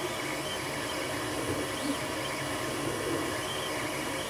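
Ender 3 3D printer running a print: a steady fan whir, with short whines from the stepper motors that shift up and down in pitch as the print head moves.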